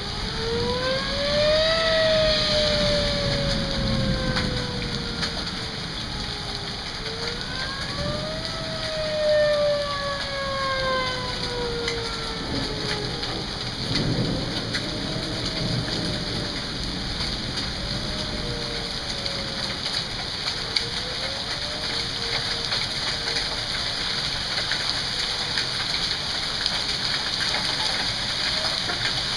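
Heavy rain falling steadily, with a couple of low rumbles of thunder. A warning siren wails through it, each rise quick and each fall slow, repeating every six or seven seconds and growing fainter after about halfway.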